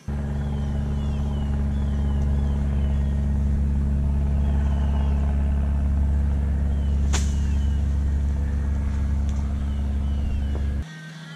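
A loud, steady low hum that starts and stops abruptly, with birds chirping faintly over it and one sharp click about seven seconds in.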